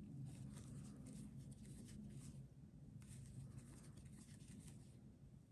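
Faint rustling and light ticks of a crochet hook working yarn, stitch after stitch, over a low steady hum.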